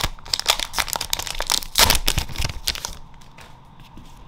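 Foil booster pack wrapper crinkling and tearing as it is handled and opened. Dense crackling for about three seconds, then it dies down.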